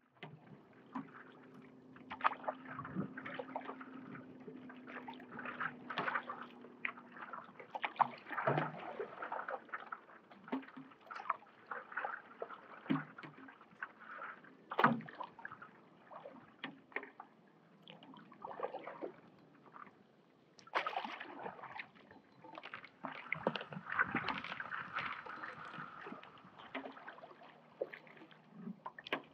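Stand-up paddle strokes in lake water: irregular splashes, drips and gurgles as the blade dips in and pulls through. A low steady hum runs under the first several seconds.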